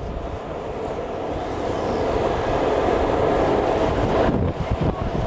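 Skateboard wheels rolling fast on asphalt, a steady roar that grows louder over about four seconds, with wind on the microphone and a few short knocks near the end.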